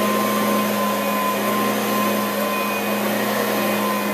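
Tornado cordless battery-powered upright vacuum cleaner running steadily on carpet: an even motor whine with a held high tone over a low hum.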